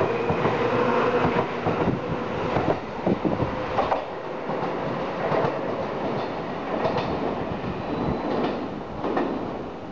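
Seibu 3000-series electric commuter train pulling away from the platform: a steady motor hum fades out about a second in, then the wheels click over rail joints while the sound dies away as the train recedes.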